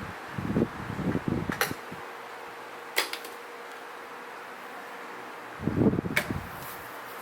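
Galaxy 2150 12-inch oscillating table fan running with a steady hum and airy hiss, with gusts of air buffeting the microphone early on and again about six seconds in. A few sharp clicks come in between.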